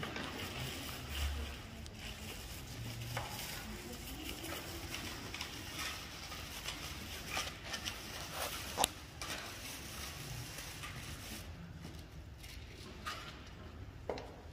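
Quiet room ambience: a steady hiss with scattered small clicks, knocks and rustles, one sharper knock a little before the middle.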